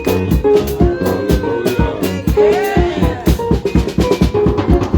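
Upbeat music with a drum kit playing a fast, busy beat, bass drum and snare hits several times a second, under held pitched notes from other instruments.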